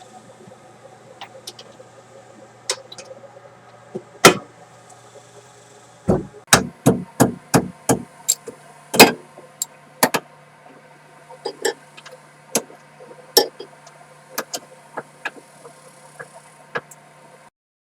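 Hammer blows on a rusted-on rear wheel hub, struck to break it loose. One hard strike comes about four seconds in, then a quick run of strikes about three a second, a few more hard hits, and lighter scattered knocks.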